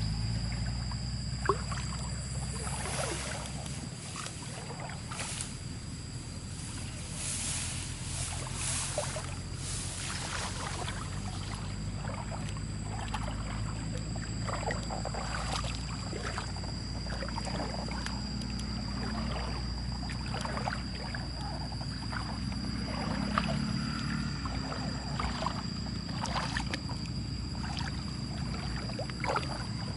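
Muddy water sloshing and splashing in irregular strokes as hands work through it, over a steady high whine.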